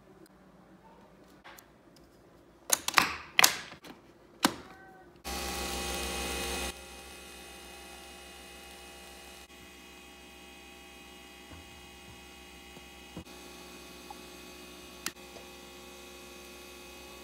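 Nespresso Vertuo coffee machine brewing. There are a few sharp clicks and clatters first, then a loud steady hum about five seconds in. After a second and a half it drops to a quieter steady hum, with a few light ticks.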